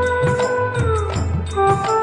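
Instrumental interlude of a Bhojpuri devotional song (bhajan): a melody instrument holds a long note, slides down about a second in and moves on to new notes, over a steady percussion beat.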